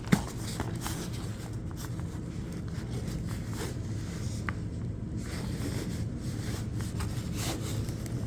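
Rustling and light clicks of items being handled inside a bag pouch, with a sharper click right at the start, over a steady low hum.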